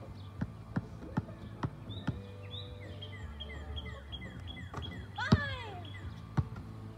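Basketball dribbled on an asphalt court, about two and a half bounces a second for the first two seconds, then a bird singing a run of repeated chirps. About five seconds in comes the loudest sound, a hit as the shot reaches the hoop, followed by the ball bouncing once on the court.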